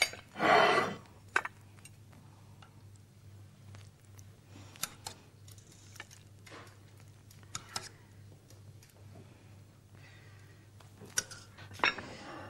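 Crockery and cutlery being handled as food is served: a brief louder scrape about half a second in, then scattered light clinks and knocks of plate, knife and spoon against crockery and a saucepan. A steady low hum runs underneath.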